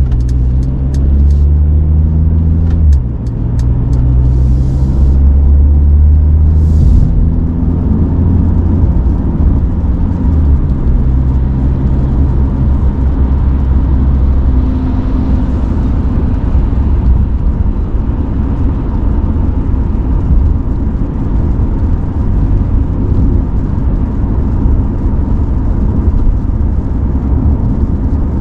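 2020 Mercedes-Benz CLA heard from inside the cabin while driving: a steady low engine drone and tyre and road rumble. The engine note steps in pitch a few times in the first ten seconds, then settles into an even road noise.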